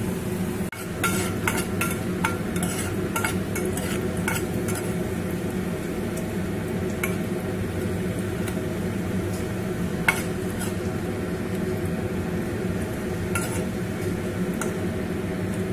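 Masoor-dal bori sizzling as they fry in hot mustard oil in a steel pot, over a steady low hum. A steel spoon stirs them, clicking and scraping against the pot, most often in the first few seconds, with one sharp knock about ten seconds in.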